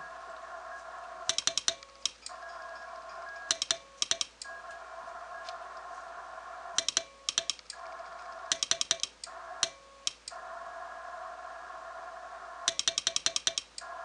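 Brass straight Morse key clicking as it is worked by hand to send Morse code, in uneven groups of quick clicks with pauses between. Under the clicks runs a steady hum of tones and hiss that cuts out in short gaps during the keying.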